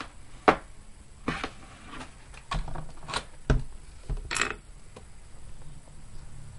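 A string of irregular sharp clicks and knocks, the loudest about half a second in, with a short scrape near the middle: hands handling a PC case and its parts.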